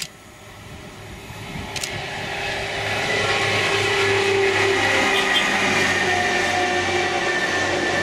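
Yellow engineering train passing close by on the main line: its engine and wheels on the rails grow louder over the first few seconds, hold as it goes past, and ease off near the end. Sharp clicks at the start and about two seconds in.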